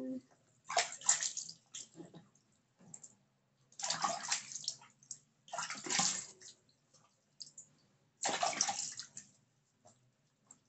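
Water splashed by hand over a dachshund puppy being bathed, running off onto the floor, in four splashes of about a second each.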